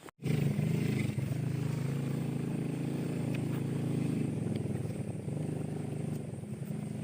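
An engine running steadily at an even speed, starting abruptly after a brief cut.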